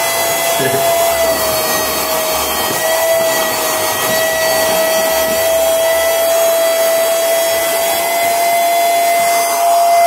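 LT-117 handheld cordless vacuum cleaner running with a steady high motor whine as its crevice nozzle sucks up scraps of tissue paper. The pitch wavers slightly a few times in the first few seconds.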